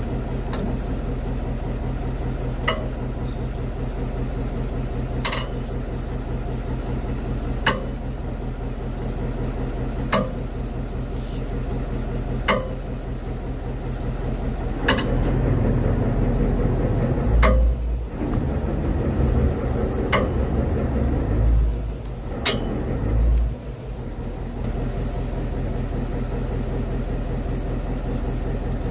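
Fishing boat's engine running steadily at idle, with a sharp click repeating about every two and a half seconds that stops about three quarters of the way through. A louder low rumble swells and fades several times in the middle.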